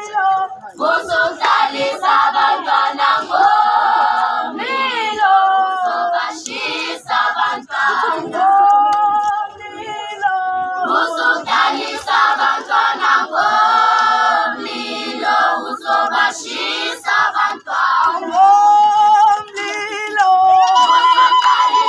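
A group of girls singing a Zulu song in chorus without instruments, with short sharp hits scattered through the singing.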